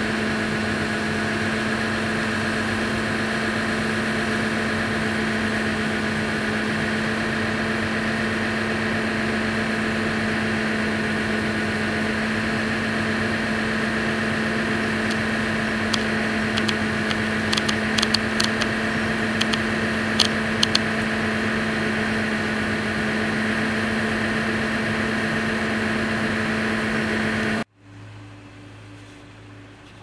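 Case IH 1660 Axial-Flow combine running under load, heard from inside its cab, as its unloading auger empties shelled corn into a truck: a loud, steady mechanical drone with a strong hum and a few faint ticks midway. Near the end it cuts suddenly to a much quieter, lower hum.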